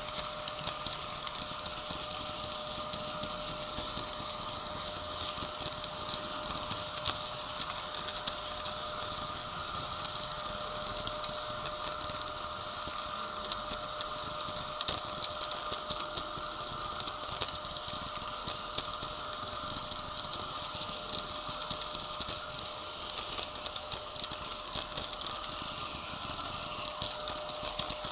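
HO scale model trains running on the layout: a steady hum with one constant tone, over which small clicks come often and unevenly.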